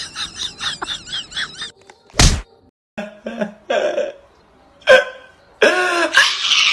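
A woman's wordless vocal reactions: a high, wavering whine, then short cries and groans, ending in a loud drawn-out scream-like cry. There is a sharp thump about two seconds in.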